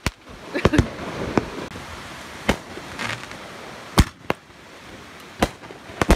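Consumer fireworks going off: a rocket launching and shells bursting, heard as scattered sharp pops and bangs, the loudest about four seconds in, over a low steady hiss.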